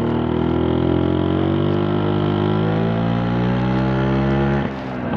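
Vespa PTS scooter's two-stroke single-cylinder engine running under way, its pitch rising and easing off with the throttle, with a brief drop in level near the end.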